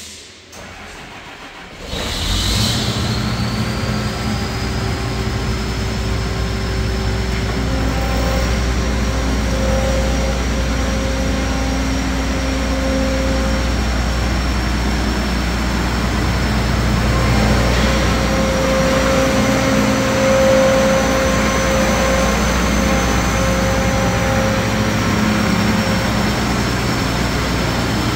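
John Deere 9770 STS combine's diesel engine starting about two seconds in, then running steadily with a high turbo whistle over its low hum.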